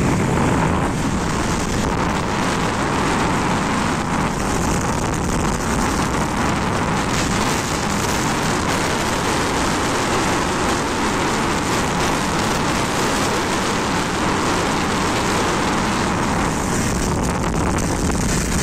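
Steady rush of wind on the microphone of a moving motorcycle, with the motorcycle running at a steady cruising speed underneath.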